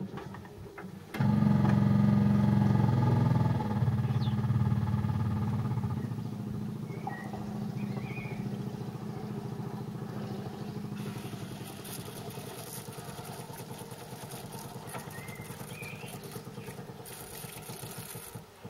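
New electric fuel pump switched on and priming a dry fuel system, ticking rapidly as it pushes fuel into the empty glass filter bowl. It starts about a second in, loudest for the first couple of seconds, then steps down and eases off as the lines fill.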